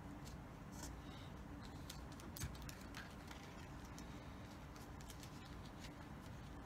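Faint rustling and light clicks of a paper card and ribbon being handled and pressed down with tape, with one sharper tap about two and a half seconds in.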